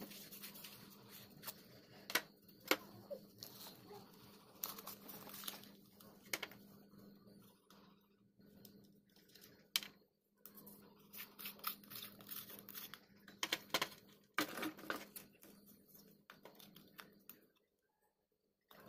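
Metal-on-metal scraping, clicks and knocks of an old chrome torch being taken apart by hand: threaded end caps unscrewed and parts set down on a tiled tray, over a low steady hum.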